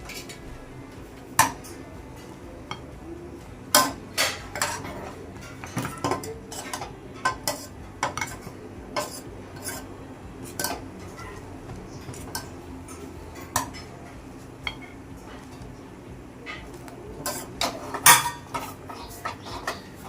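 A metal utensil clinking and scraping against a pan while the chai is stirred as it cooks, in irregular sharp clinks.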